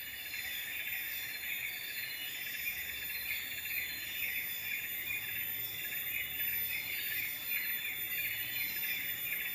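A dense insect chorus: a fast, pulsing high buzz that keeps on steadily, with thin steady high tones above it.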